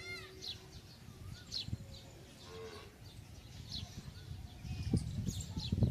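Birds calling: a run of repeated chirps at first, then several quick high down-slurred calls scattered through. About two and a half seconds in comes a short call of another kind, and a low rumbling noise grows toward the end.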